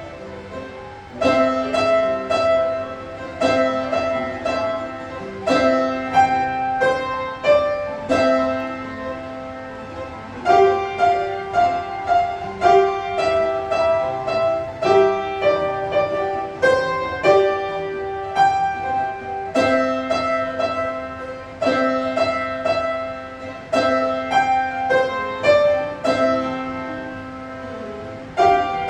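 Piano playing a simple beginner's piece: a melody in short repeated phrases over low notes held in the left hand, each note struck and left to fade.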